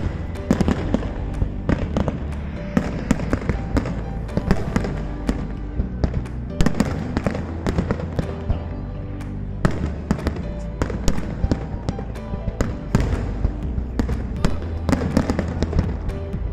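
Aerial fireworks shells bursting in a rapid, irregular run of sharp bangs and crackles, over loud music with a steady bass.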